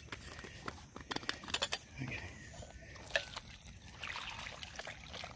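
Water poured from a stainless steel bottle into a collapsible silicone dog bowl, splashing and trickling. Scattered clicks and taps come from the bottle and its screw cap being handled.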